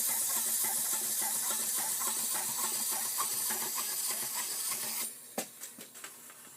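Spring-wound clockwork mechanism of a small plastic wind-up figure running down with a steady whirring buzz and rapid ticking. It stops suddenly about five seconds in, followed by a few light clicks.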